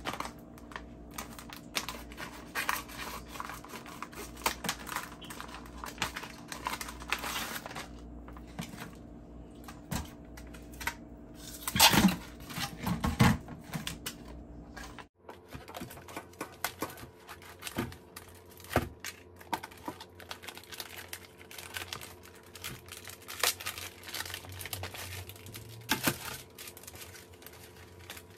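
Plastic packaging being handled and cut open at a stainless-steel sink: irregular crinkling and tearing of plastic bags and vacuum-seal film, snips of kitchen scissors, and plastic trays clicking against the sink. The loudest burst of rustling comes about midway.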